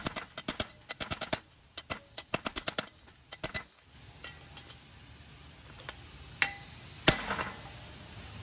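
Rapid metal-on-metal hammer blows driving a bearing race into the deep case half of a Toyota 7.5-inch clamshell front differential, in quick flurries for about three and a half seconds, then a few lighter single taps.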